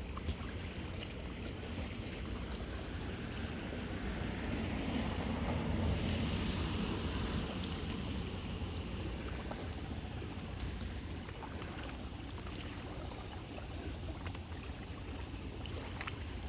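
Sea water washing at the shore with wind rumbling on the microphone, swelling about five seconds in and easing off again.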